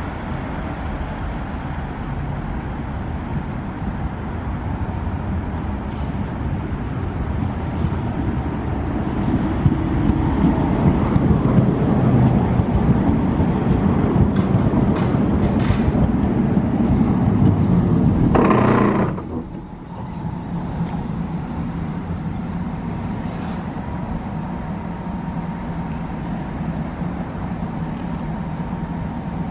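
A Brussels STIB tram, a Bombardier Flexity Outlook of the 3000 series, running in on its rails. The running noise grows louder as it nears, peaks with a short hiss, then drops off suddenly about two-thirds of the way in as it comes to a halt. After that the stopped tram gives off a steady low hum.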